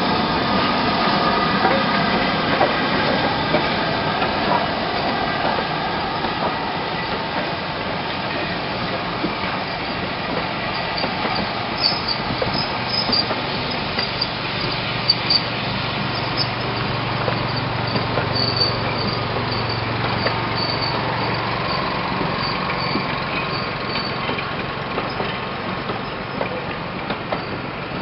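Passenger carriages of a steam-hauled train rolling past on the track: a steady wheel rumble with scattered clicks over the rail joints, and faint high wheel squeals through the middle stretch.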